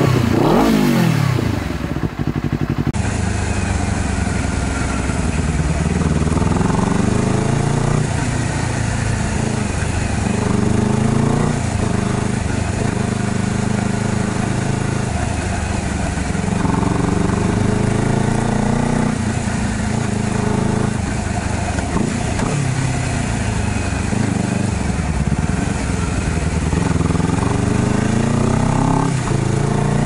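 Honda CBR250RR motorcycle engine. It starts with a rev whose pitch falls away quickly over the first couple of seconds. Then the bike is ridden along, the engine note climbing again and again and dropping back at each gear change or roll-off.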